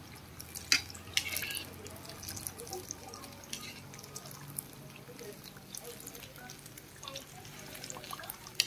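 Battered banana pieces deep-frying in a pan of hot oil: a steady sizzle and crackle with scattered sharp pops, the batter spitting hard.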